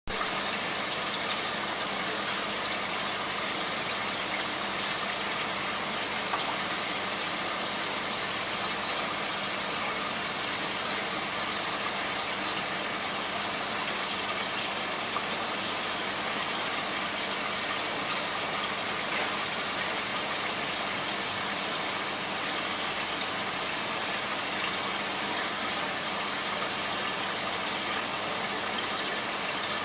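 Steady rush of running water in a koi holding tub, with a low pump hum underneath.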